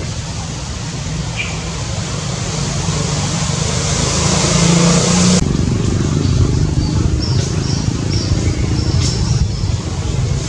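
Steady low outdoor rumble, like distant traffic, swelling louder and then cutting off suddenly about five seconds in. After it, a few short high chirps sound.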